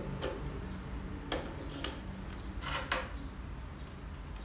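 Several separate metal clicks and clinks as a steel drill chuck's arbor is pushed into a magnetic drill's spindle and a hex key is fitted to the set screw that locks it.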